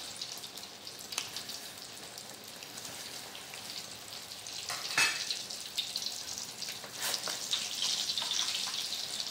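A pot of noodle soup boiling on the stove, a steady bubbling hiss, with a few sharp clicks of a utensil against the pot, the loudest about five seconds in.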